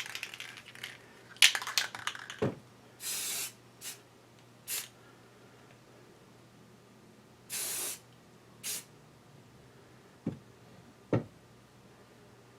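Spray paint hissing in four short bursts, two of about half a second and two briefer, while lathe parts are painted. A clatter of clicks comes before the spraying, and two sharp knocks come near the end.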